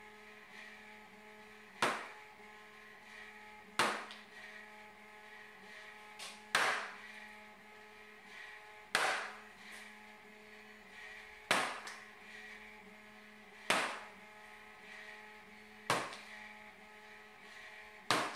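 Hammer striking a punch through a paper template into a plywood top, marking screw-hole positions: eight sharp taps about every two seconds, over a steady low hum.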